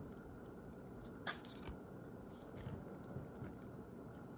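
Quiet room tone with a few small clicks and rustles from handling packaging or a card. The sharpest click comes about a second in, and fainter ones follow.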